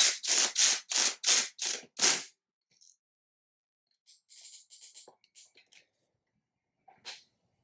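Ratcheting torque wrench clicking through short back-and-forth strokes, about three a second for the first two seconds, while tightening clamp bolts to about 14–15 N·m. After a pause, a few shorter bursts of ratcheting come about four seconds in, and a single click near the end.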